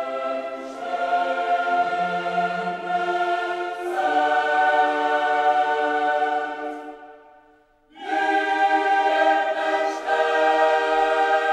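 Choral background music of long held chords, changing every couple of seconds; it fades away about seven seconds in and comes back a second later.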